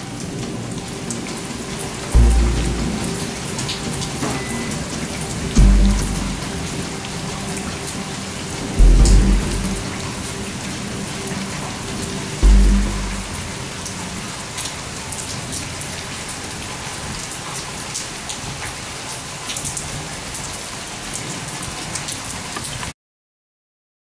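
Steady rain falling, an even hiss throughout. Four deep low thuds come about every three and a half seconds in the first half, under faint background music, and the sound cuts off suddenly about a second before the end.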